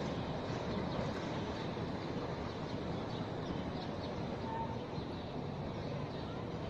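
Low-floor electric tram rolling away along its street track, heard as a steady rumble amid city street noise, with a few faint bird chirps.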